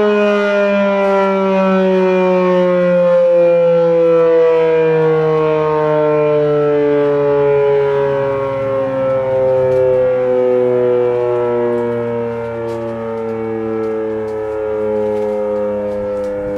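Federal Signal Model 5 mechanical fire siren sounding a loud chord of several tones whose pitch slides slowly and steadily downward as the siren winds down.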